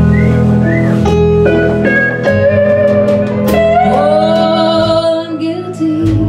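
Live band playing a slow song, with an electric keyboard among the instruments, in an instrumental stretch between sung lines.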